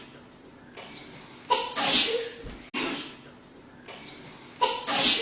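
A woman's wet double sneeze, repeated. A short voiced intake leads into a loud sneeze about one and a half seconds in, and a second sneeze follows about a second later. The same sequence starts again near the end.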